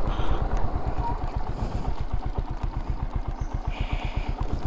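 Motorcycle engine running steadily at low revs, an even, regular beat of firing pulses.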